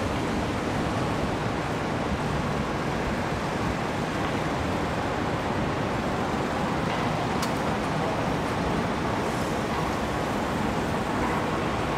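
Steady city street ambience of road traffic, a continuous wash of passing vehicles, with one brief click a little past halfway.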